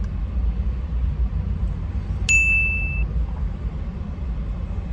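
Steady low rumble inside a car, with a single electronic beep about two seconds in: one high, even tone that holds for under a second and stops cleanly.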